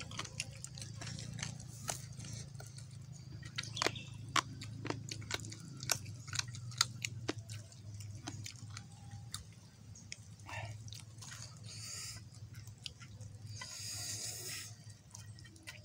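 A person eating grilled chicken with sambal close to the microphone: chewing and lip-smacking, with many sharp wet clicks, over a steady low hum. A brief hiss comes near the end.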